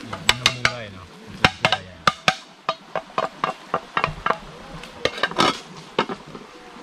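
A quick, irregular run of sharp knocks, about twenty in under seven seconds, some close together and some spaced out.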